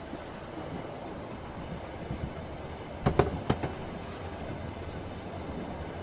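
Train wheels rumbling steadily on the rails. About three seconds in comes a quick cluster of loud knocks as the wheels run over a rail joint.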